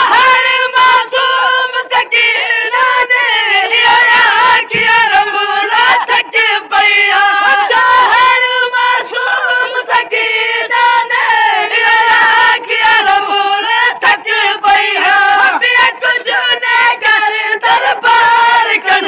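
Voices chanting a Saraiki noha refrain in a high, sustained melody, with short sharp slaps throughout.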